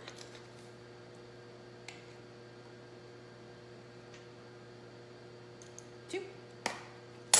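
Steady low electrical hum with a few light clicks of a metal measuring spoon against a baking powder container, the sharpest one near the end.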